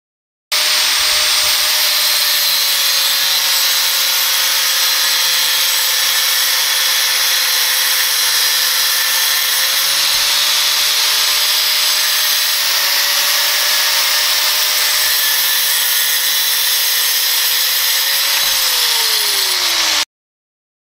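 Angle grinder cutting through square steel tube with a 1 mm Flexovit abrasive cut-off wheel: a steady high motor whine over the hiss of the cut, the whine falling in pitch near the end.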